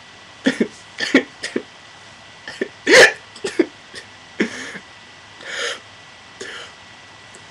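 A man hiccuping: a quick string of short, sharp hiccups over the first four seconds, the loudest about three seconds in, then three slower, breathier ones.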